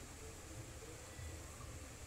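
Faint steady hiss with a low rumble underneath: background room noise.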